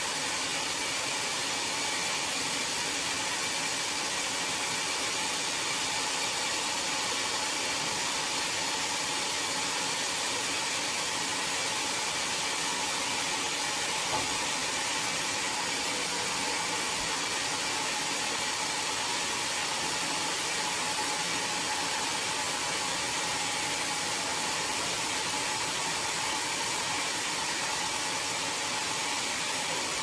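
Sawmill band saw running steadily as it cuts through a large mahogany log on the carriage: an even whirring hiss with a faint steady whine.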